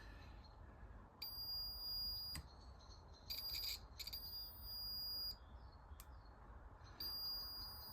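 Multimeter continuity beeper sounding in four high, steady beeps of differing length as the probe tips touch and leave the switch contacts, with faint clicks of the probes. Each beep marks a closed circuit across the contact being tested.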